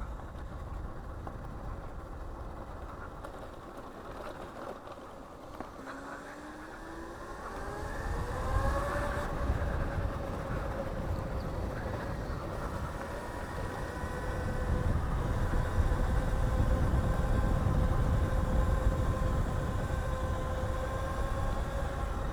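Electric motor of a Razor electric bike modded with a Hotpaxx 5 kW kit, whining as it speeds up: the pitch rises a few seconds in, then holds steady while cruising, over a low rumble.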